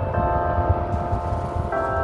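Church bells of an 1889 Congregational church ringing: two new strokes on different notes, one just after the start and one near the end, each ringing on over the last, with a low rumble beneath.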